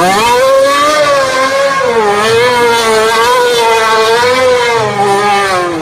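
McLaren-Honda Formula 1 car's engine held at high revs while the car spins donuts, its pitch wavering up and down.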